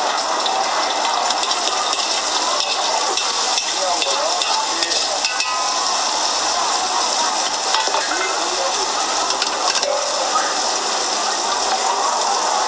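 Pad thai noodles, egg and bean sprouts sizzling steadily in a hot steel wok as they are stirred and tossed with a metal spatula, the spatula now and then scraping against the wok.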